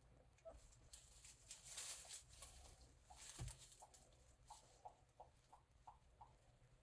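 Tibetan mastiff puppies moving about: faint pattering and clicking, then a quick run of short, faint squeaks, about three a second, in the second half.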